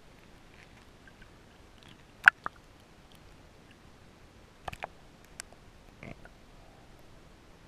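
A few sharp clicks and knocks picked up by a camera under water, the loudest about two seconds in, then a quick cluster around the middle and a softer one near the end.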